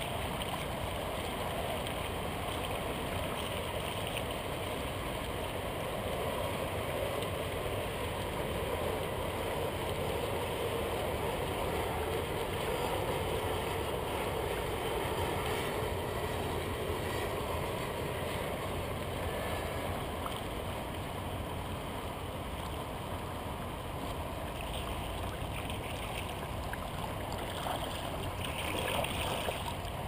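Steady wash of river water lapping and gurgling against a kayak's plastic hull as it moves through light chop.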